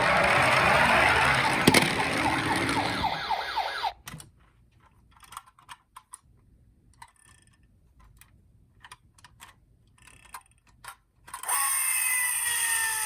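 Electronic siren of a toy emergency vehicle sounding through its small speaker, stopping abruptly about four seconds in. Then several seconds of near quiet with scattered light clicks, before another toy siren starts near the end with falling tones.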